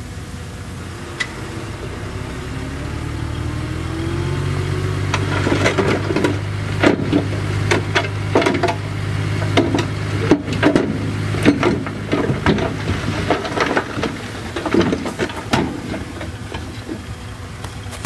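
CAT D6D bulldozer's six-cylinder diesel engine rising in pitch as it takes load, then pulling steadily. From about five seconds in, repeated sharp metallic clanks and knocks run over the engine sound.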